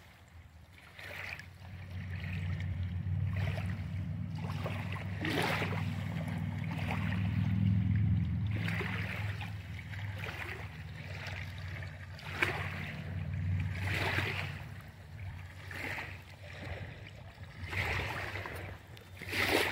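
Small waves lapping at the lakeshore, with a short splash every second or two over a low, steady rumble.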